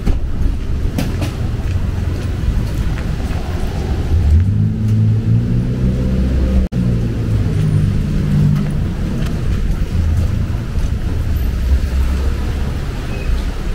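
City street traffic: a steady low rumble, with one vehicle's engine rising in pitch as it pulls past about four seconds in and running on for several seconds. The sound cuts out for an instant midway.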